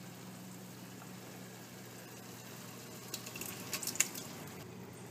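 Crushed canned tomatoes poured from a glass bowl into a pot of rice: wet plops and a few sharp clicks come about three to four seconds in, over a steady low hum.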